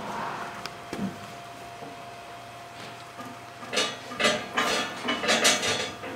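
Water buffalo calves feeding at buckets in a metal-railed pen, with a quick run of sharp knocks and clatters starting a little past halfway, as the calves bump their buckets and the pen rails.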